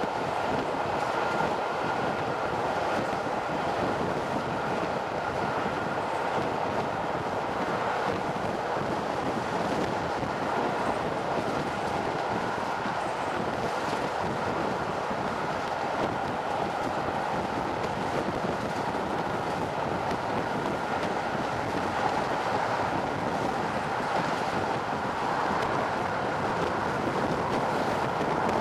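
Passenger coach of a diesel-hauled train running at speed: steady wheel-on-rail noise mixed with wind rushing over a microphone held at an open window. A faint steady high tone sits under the noise throughout.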